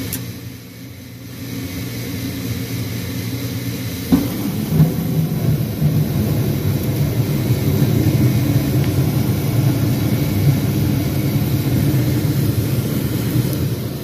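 Gas furnace burners lighting off the glowing hot surface igniter: a steady hum from the running inducer motor, then about four seconds in a sudden soft thump as the gas catches, followed by a steady low rumble of the burners burning.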